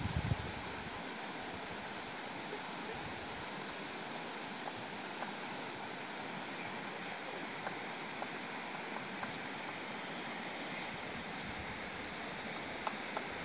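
Steady outdoor background hiss with no clear single source, and a few faint short ticks near the end.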